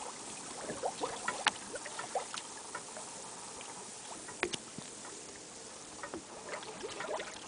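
Sea water lapping and splashing against a boat's hull: a steady hiss broken by scattered small splashes and ticks, a few of them sharper, about a second and a half in and again at about four and a half seconds.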